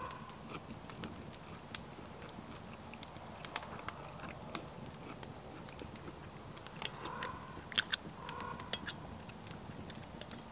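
Close-miked chewing and wet mouth sounds of a man eating beef chow mein noodles, with a fork clicking and scraping on the plate.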